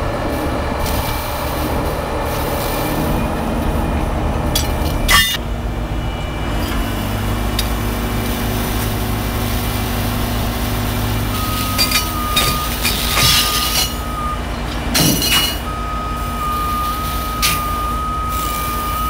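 Diesel engines of heavy tow trucks running steadily, with a few sharp metallic clanks. From a little past halfway, a steady high whine joins in.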